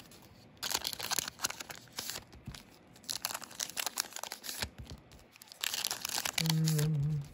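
Trading-card booster pack wrappers being torn open and crinkled, in about three bursts of ripping and rustling. Near the end a man hums briefly.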